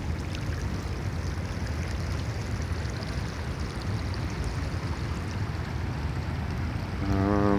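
Steady rushing of water with a low rumble underneath.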